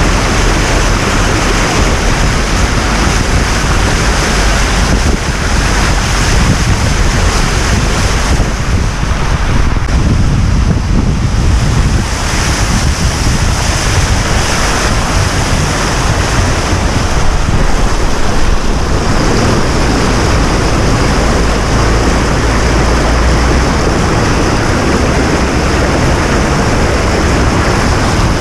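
A vehicle driving through floodwater: a loud, steady rush of water and wind noise over a low rumble.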